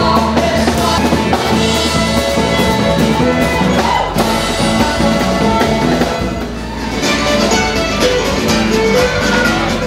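Music with guitar and drums.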